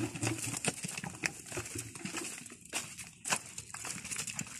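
Footsteps of people and cattle walking over dry leaves and twigs on a dirt path: irregular crunches and crackles.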